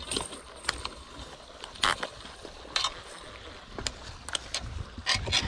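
Scattered light clicks and scrapes of a baitcasting rod and reel being handled on a concrete bank, with denser rustling and scuffing near the end.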